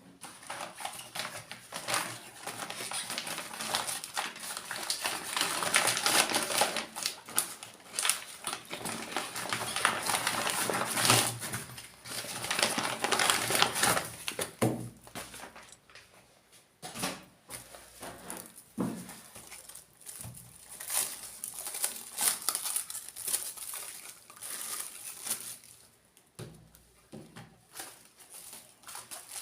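Packaging crinkling and rustling as it is unwrapped and handled, with scattered clicks and knocks, coming in irregular spells with short quieter pauses.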